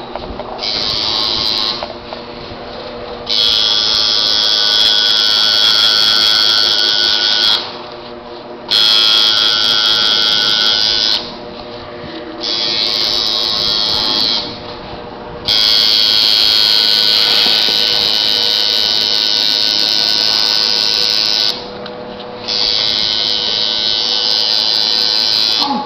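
Tattoo machine buzzing in stretches of a few seconds, starting and stopping about six times as the artist works the needle.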